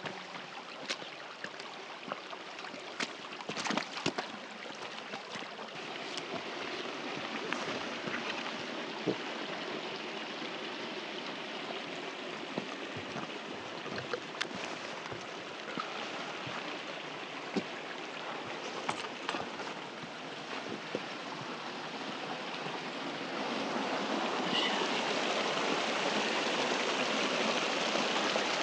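Creek water rushing over rocks, a steady noise that gets louder near the end, with scattered sharp clicks over it.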